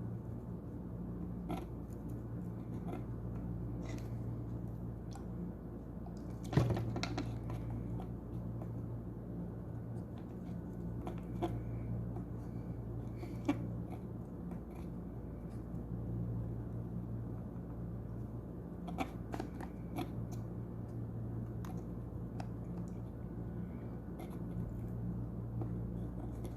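Steady low electrical hum with scattered small clicks and scratches of hand tools working on a circuit board being cleaned, with one sharper knock about six seconds in and a few more clicks around twenty seconds in.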